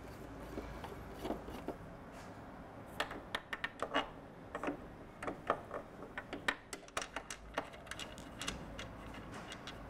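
Irregular light clicks and taps of hands handling a scooter's plastic front panel and headlight fittings, a few at first and then a quick flurry from about three to eight seconds in.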